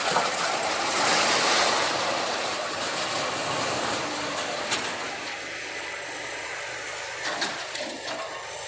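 Horizontal baling machine running: a steady mechanical noise that is louder and hissier for the first couple of seconds, then settles lower, with a couple of short knocks.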